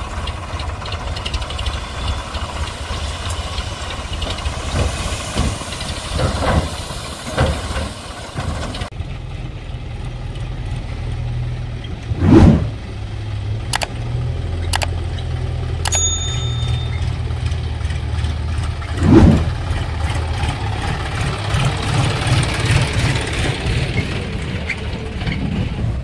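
Diesel tractor engines running steadily with a low rumble. Two loud thumps come about seven seconds apart, with a few sharp clicks between them.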